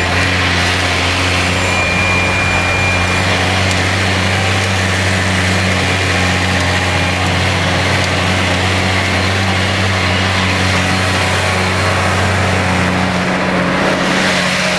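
New Holland T6070 tractor's diesel engine running steadily under ploughing load, heard from inside the cab. The low drone shifts slightly near the end.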